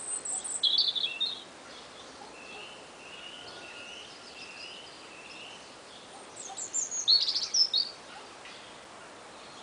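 Songbirds singing: a quick high chirping phrase at the start, a row of softer repeated whistled notes, then a louder burst of falling chirps about seven seconds in, over a steady background hiss.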